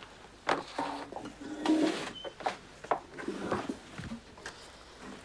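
Drinking cups and a serving tray clinking and knocking on a tabletop as refreshments are handed out: a run of light, irregular clicks and clunks, with denser clattering about a second in, around two seconds and near three and a half seconds.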